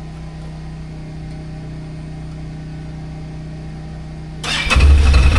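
A steady low hum, then about four and a half seconds in a Can-Am Outlander ATV engine is started and catches at once, running loudly. It starts right up with the re-pinned wiring-harness plug, the cure for its no-start fault.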